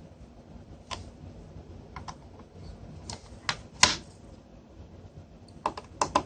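Scattered sharp clicks and taps of small hard plastic parts being handled: about eight in all, the loudest about four seconds in, with a quick run of three or four near the end.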